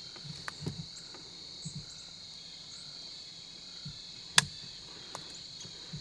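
Crickets chirping steadily and faintly, with a few soft knocks and one sharp click a little over four seconds in.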